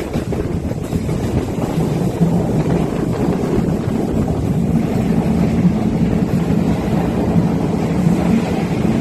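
Passenger train running at speed, heard from aboard: a steady low rumble of the train on the track with a low drone, and wind on the microphone.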